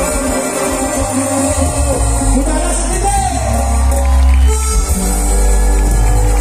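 Live cumbia band music with a singer's voice over strong, steady bass.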